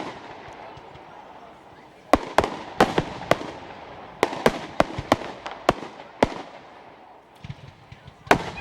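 Fireworks display: after a quiet first two seconds, a quick series of sharp bangs from bursting shells with crackling between them. It thins to small pops, then one more bang near the end.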